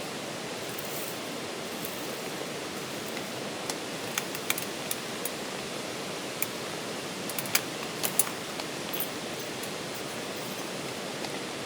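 Campfire burning with a steady hiss and a scattering of sharp crackles and pops, most of them in the middle of the stretch.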